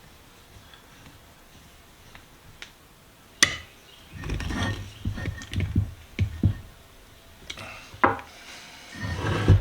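Metal vise parts being handled and fitted together during reassembly: a sharp click, then a quick run of knocks and clunks, a few more sharp clicks, and a short clatter near the end.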